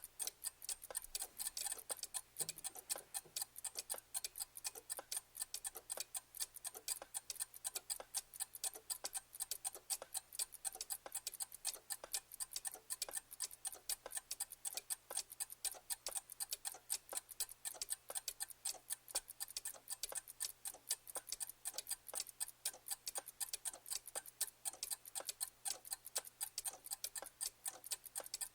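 Clock ticking steadily, many sharp ticks a second.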